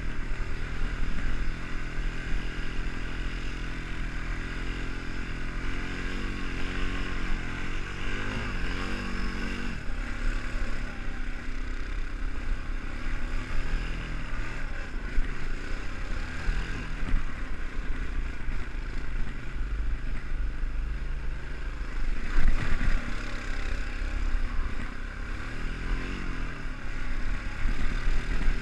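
ATV engine running while riding, its pitch rising and falling a few times with the throttle.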